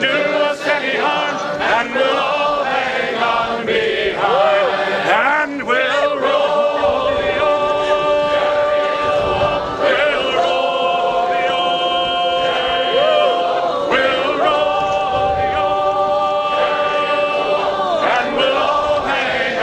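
Background music: a choir singing in long held chords.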